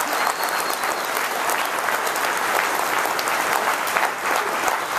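Audience applauding steadily, a dense crowd of many hands clapping.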